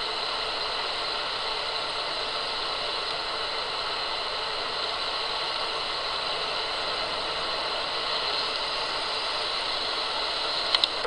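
Steady hiss with a faint high steady tone running through it, and a sharp click near the end.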